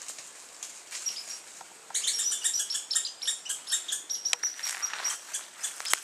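High-pitched chattering calls from a small animal in the woods, a rapid run of short chirps that starts about two seconds in and keeps going.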